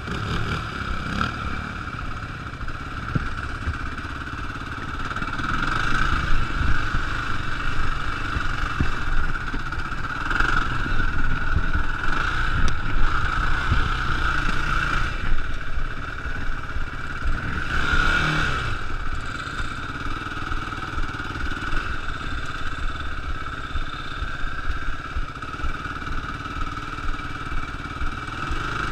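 Sport quad engine running while riding over sand, the revs rising and falling with the throttle, with wind rumble on the microphone.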